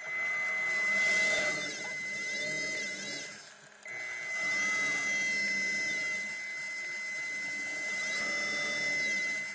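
Electric thruster motors of an underwater camera vehicle whining, their pitch sweeping up and down, over a steady high whine. The sound drops away briefly a little before halfway, then resumes.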